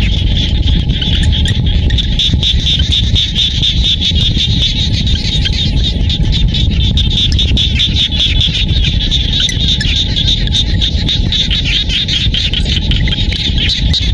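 A dense chorus of frogs calling from a flooded rice field, many rapid pulsing calls overlapping without pause, over a steady low rumble.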